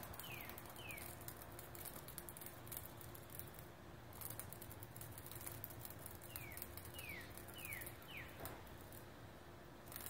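A cicada on the ground giving a high rasping buzz in stretches, breaking off about four seconds in and again near the end. A bird in the background calls twice, each time four quick falling whistles: once at the start and once about six seconds in.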